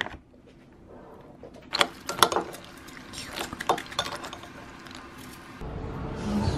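A metal spoon clinking against a ceramic cereal bowl, several light scattered clinks while eating flake cereal with milk. A low steady hum comes in near the end.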